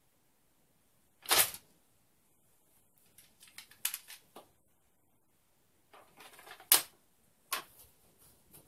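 A replica katana drawn fast from its scabbard and put back: a short, sharp swish as the blade leaves the scabbard about a second in, then a run of light clicks and scrapes, and a loud sharp click near seven seconds as the sword goes back into the scabbard, with one more click after it.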